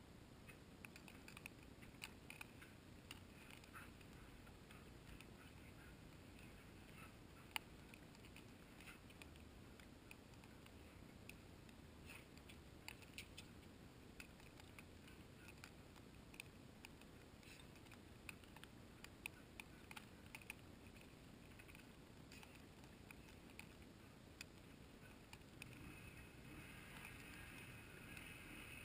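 Near silence, with faint scattered clicks and ticks. Near the end a faint high-pitched tone comes in.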